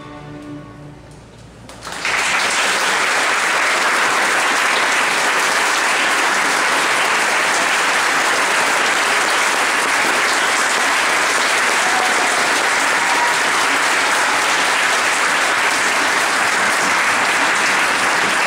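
A string orchestra's final held chord fades away. About two seconds in, audience applause breaks out suddenly and continues steadily.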